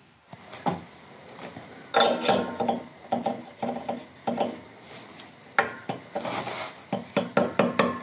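Sharp metallic clinks and taps, some of them ringing briefly: a steel spur drive centre being fitted into the lathe's headstock spindle and tapped home with a mallet, with a quicker run of taps near the end.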